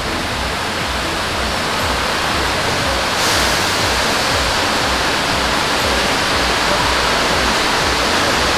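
Steady rush of water running into the fish-farm tanks, growing brighter and a little louder about three seconds in.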